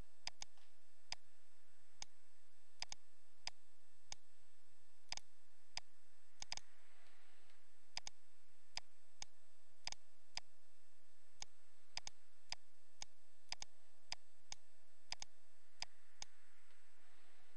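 Computer mouse clicking at an irregular pace, about one or two sharp clicks a second, over a steady faint background hiss and a faint steady tone.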